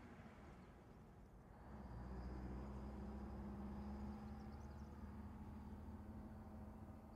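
Faint, steady low hum of a GM Silversides bus's diesel engine running in the distance, with a few faint bird chirps.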